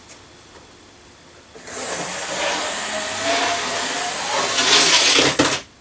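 Small 0-4-0 model steam locomotive running flat out round the layout: its electric motor whirring and its wheels rattling on the track, starting about a second and a half in and growing louder. The noise cuts off suddenly near the end as the loco flies off the track at speed.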